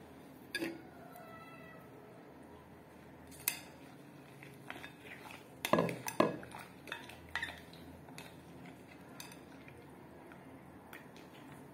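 Metal spoon clinking and scraping against a glass bowl while stirring and scooping a thick kaolin-clay mixture with chalk pieces: a short ringing knock about half a second in, then a string of separate clinks, the loudest two close together about halfway through.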